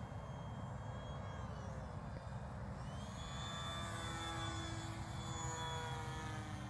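Small electric RC plane's brushless outrunner motor and propeller whining in flight, the pitch of its tones shifting from about three seconds in, over a low rumble.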